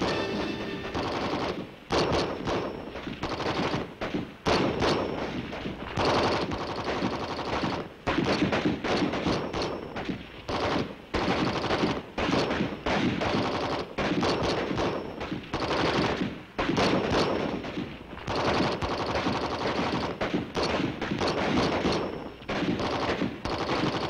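Sustained small-arms fire: many rifle shots overlapping in rapid, uneven succession, with bursts of automatic fire.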